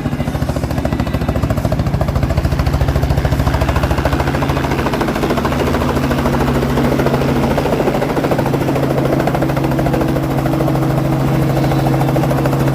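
Helicopter rotor beating in a rapid, even chop over a steady engine drone, loud and close.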